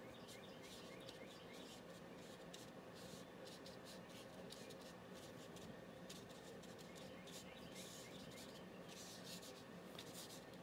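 Faint swishes of a paintbrush stroking wet paint onto paper, short and irregular, one stroke after another.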